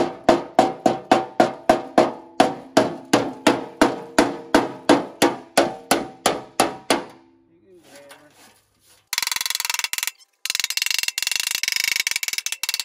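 Hammer striking the rusted steel of a John Deere 42-inch mower deck in quick, even blows, about three to four a second, each one ringing the sheet-steel deck as it knocks loose rust scale. The blows stop about seven seconds in, and after a short pause harsh scraping of metal on the rusty steel follows, broken once.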